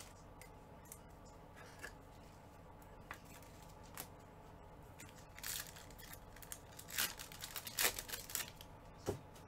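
A foil trading-card pack wrapper crinkling and tearing as gloved hands pick it up and open it, in a few sharp rustles from about halfway through, loudest near the end.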